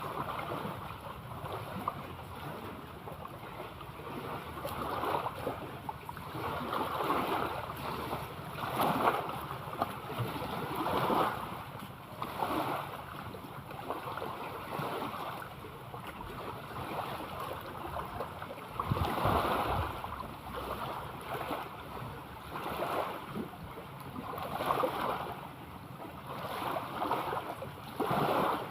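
Sea water washing and lapping in repeated surges every second or two, with wind noise on the microphone.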